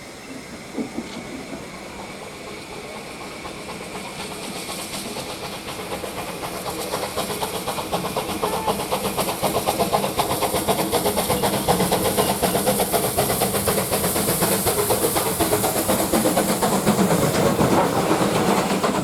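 Steam locomotive and train drawing nearer and growing steadily louder, with steam hiss and a rapid clatter of wheels on the rails.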